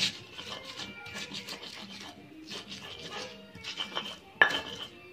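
Stone pestle grinding red chilies, shallots and garlic against a stone mortar: a run of short, rough scraping and crushing strokes. About four seconds in comes a sudden, louder high-pitched cry.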